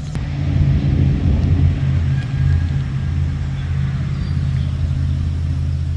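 Vehicle engine running steadily at idle, a low, even rumble, with a sharp click just after the start.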